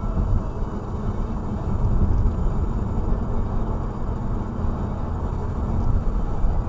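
Steady low rumble of a car's tyres and engine at about 70 to 80 km/h, heard from inside the cabin.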